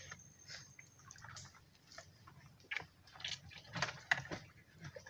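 Scattered small splashes and sloshes of a person wading through shallow muddy water, a little louder near the end.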